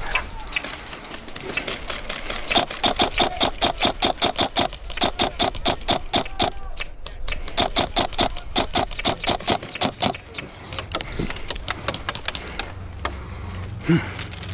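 Upgraded Krytac REC7 airsoft electric rifle firing long full-auto strings of shots, about ten a second, in the middle of the stretch, then scattered single shots.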